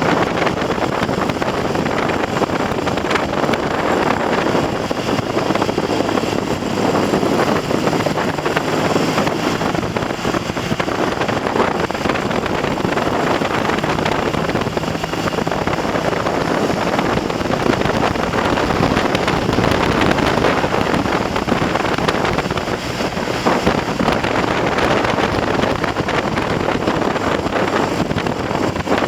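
Heavy wind noise on the microphone from riding at speed, with the Triumph TR6's 650 cc parallel-twin engine running steadily underneath, faint and partly drowned out. The engine has just had a top-end rebuild with new pistons and rings and runs on a 108 needle jet, and it is being run in at mid-range revs with small throttle openings.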